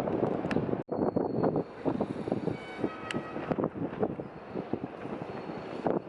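Wind buffeting the microphone in irregular gusts, with a brief dropout about a second in.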